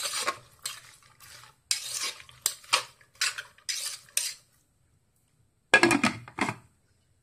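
A metal spoon stirring and scraping chopped vegetables in an aluminium pressure cooker, a quick run of clinks and scrapes against the pot's sides. After a short pause, the pressure cooker's lid knocks against the pot as it is put on and turned shut.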